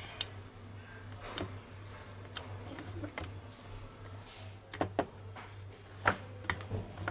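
Irregular small clicks and taps of desoldering work on a circuit board, as an IC is worked free, over a steady low hum.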